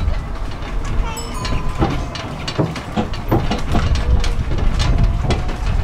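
Dotto road train moving, heard from aboard: a steady low rumble with irregular rattles and knocks from the carriages jolting along.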